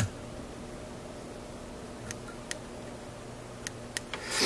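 Small fly-tying scissors snipping off excess material at the fly's head: one sharp click right at the start, followed by a few faint ticks over a steady low hum.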